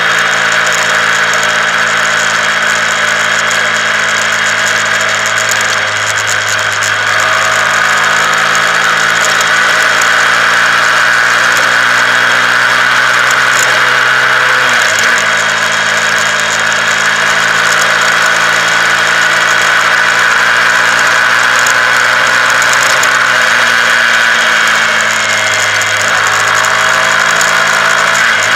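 Honda CBR125R's single-cylinder four-stroke engine pulling steadily while riding. Its note dips sharply about halfway through, as at a quick gear change, and sags and climbs again near the end as the throttle is eased and reopened.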